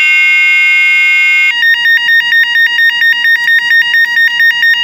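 Electronic horn of a rechargeable bicycle headlight sounding loudly, set off from its strap-mounted remote button: a steady electronic tone, then about a second and a half in it switches to a fast two-tone siren warble, about four times a second.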